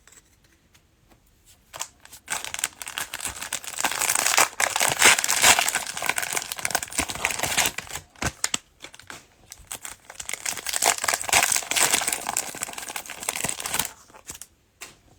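Cellophane wrapper of a trading-card cello pack crinkling and tearing as it is opened by hand. The crinkling starts about two seconds in, runs in dense crackly stretches with a short break in the middle, and stops shortly before the end.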